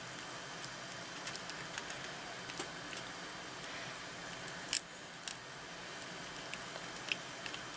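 Light clicks and taps of a flux syringe being handled over a circuit board, against a faint steady hiss; two sharper clicks about five seconds in.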